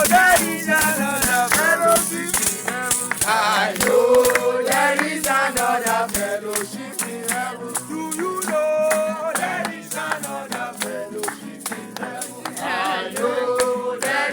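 Gospel praise song sung by a group of voices, with a shaker rattle keeping a steady beat.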